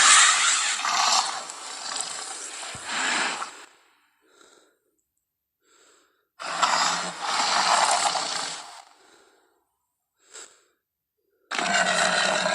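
Tyrannosaurus rex sound effects: a loud, noisy, breathy growl that fades out about three and a half seconds in, a second breathy call from about six and a half to nine seconds, and a third starting about a second before the end, with near silence and faint short blips between them.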